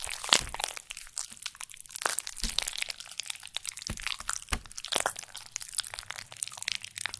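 A banana being squished, making a long wet squelching sound full of close-packed crackles and clicks, with a few louder squelches along the way.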